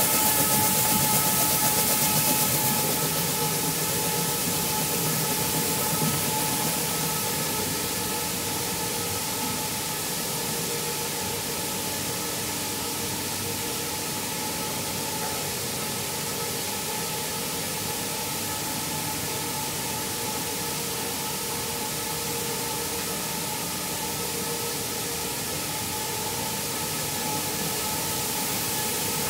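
Rice mill machinery running steadily: a constant multi-tone hum of motors over an even hiss, slightly louder in the first few seconds.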